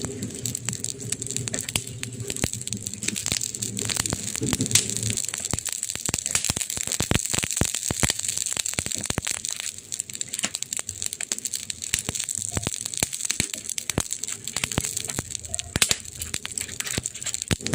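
Wood fire crackling: a dense run of irregular sharp pops and snaps over a steady hiss.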